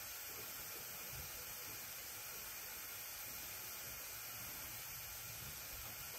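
Steady faint hiss of background noise, with no distinct knocks, clicks or tones.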